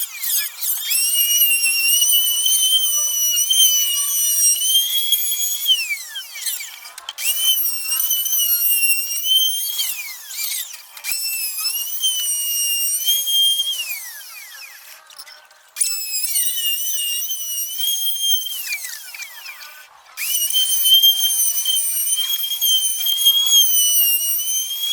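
High-pitched whine of a handheld power tool's electric motor, run in five bursts of a few seconds. Each burst ends with the pitch sliding down as the motor is switched off and spins down.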